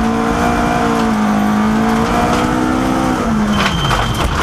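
Mk II Ford Escort rally car's engine at full revs, heard from inside the cabin over gravel road noise. The pitch holds steady for about three seconds, then drops as the revs fall.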